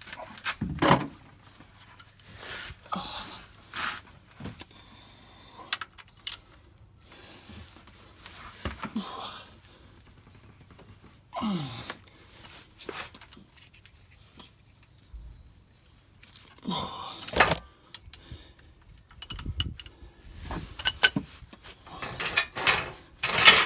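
Metal tools clinking, rattling and scraping in irregular bursts while a T40 Torx sump plug is worked loose under a car.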